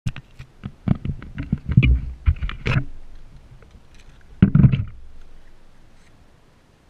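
Handling noise of a camera-carrying quadcopter drone being set down on asphalt: a quick run of clicks and knocks, then a couple of louder thumps about four and a half seconds in.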